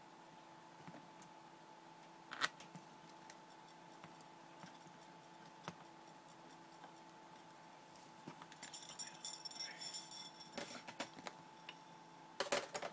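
Small metal screws and laptop parts being handled during reassembly: scattered light clicks, a tinkling metallic rattle of small pieces about nine seconds in, and a cluster of sharper clicks near the end, over a faint steady hum.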